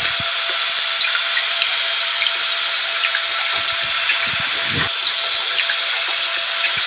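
Rain mixed with a running vacuum cleaner: an even, steady hiss with a few constant whine tones from the vacuum motor, and scattered irregular low thuds of rain.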